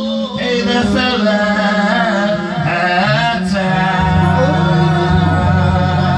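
A man singing through a microphone, over backing music; a steady low accompaniment joins about four seconds in.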